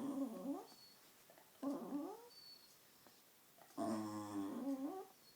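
A pet dog making drawn-out 'talking' whining vocalizations that bend up and down in pitch. There are three calls: one trailing off just after the start, a short rising one about two seconds in, and a longer one about four seconds in.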